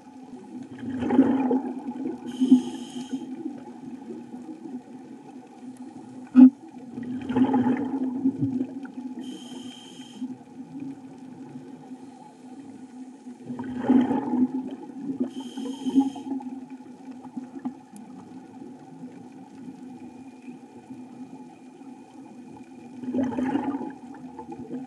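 Underwater breathing of a scuba diver through a regulator: a rumbling burst of exhaled bubbles every six to nine seconds, each followed a couple of seconds later by a short whistling hiss of inhalation. A steady low hum runs underneath, and a single sharp click comes about six seconds in.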